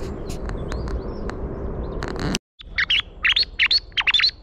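Thrush-call whistle blown in quick repeated high chirps, about five a second, each falling sharply in pitch, imitating thrushes to draw passing birds. Before this, in the first half, a steady rushing noise with a low hum cuts out in a brief dropout.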